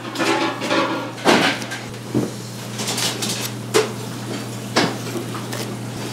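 Large chef's knife cutting through a slab of raw pork belly, dried for about four days, and knocking on a plastic cutting board: separate cuts about a second apart. A steady low hum runs underneath.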